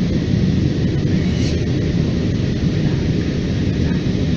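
Steady low roar inside a jet airliner's cabin in flight: engine and airflow noise coming through the fuselage.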